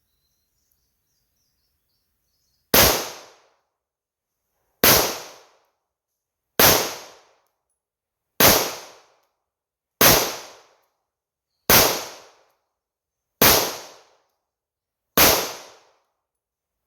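9mm semi-automatic pistol (PSA Dagger slide on a 3D-printed lower) fired in slow, deliberate single shots: eight shots about two seconds apart, starting nearly three seconds in, with a ninth right at the end, each ringing out briefly.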